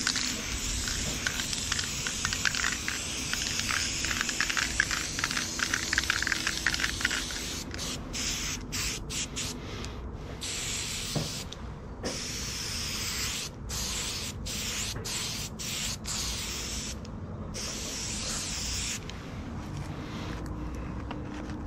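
Aerosol spray-paint can spraying: a steady hiss for the first several seconds, then a string of short sprays broken by brief pauses, stopping near the end.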